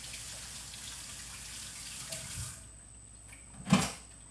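Kitchen tap running for a little over two seconds, then turned off. One sharp knock follows near the end.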